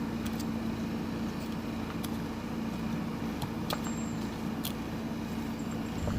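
A few faint, light metallic clicks of small lock parts being handled and tapped, over a steady low hum.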